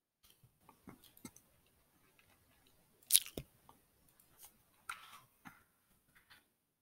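Faint, scattered clicks and taps of a computer keyboard and mouse, with one sharper, louder click about three seconds in.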